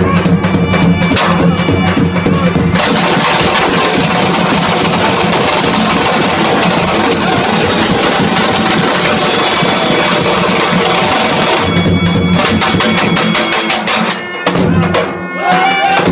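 Albanian lodra, a large double-headed bass drum, beaten in a fast, dense rhythm. The strokes merge into a continuous roll from about three seconds in to about twelve, then come apart into separate beats again.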